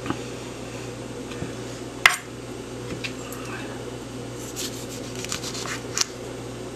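Sabatier slicing knife cutting through ripe tomatoes and knocking on a white cutting board: a sharp knock about two seconds in, then a run of short scrapes and taps near the end.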